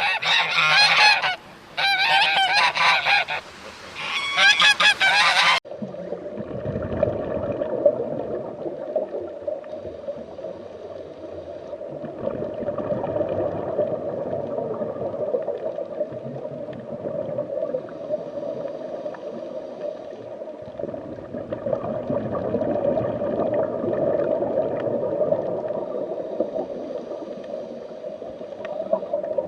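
A goose flock honking loudly and repeatedly, cutting off suddenly about five and a half seconds in. It gives way to a steady, rough, murmuring noise for the rest.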